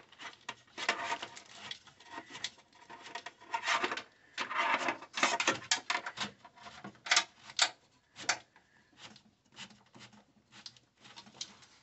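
Irregular rubbing, scraping and clicking of hands handling and feeding wiring through a car's engine bay.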